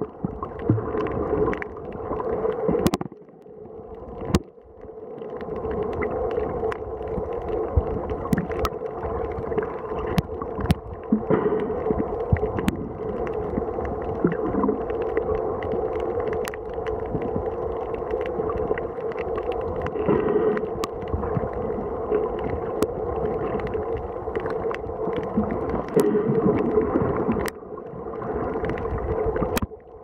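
Muffled underwater noise picked up by a camera held beneath the surface over a reef: a steady low rumble with a hum, and scattered sharp clicks every second or two. It drops quieter for a couple of seconds about three seconds in.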